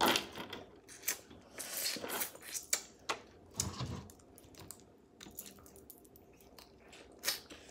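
Close-up eating of crab legs: meat pulled from the shell with the mouth and chewed, making irregular wet clicks and smacks. The clicks thin out for a couple of seconds past the middle.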